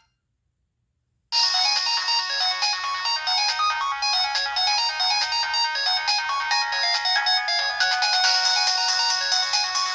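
Nokia 1209 mobile phone playing one of its preloaded ringtones: a busy, quick-note melody with several notes sounding at once, starting about a second in after a short silence.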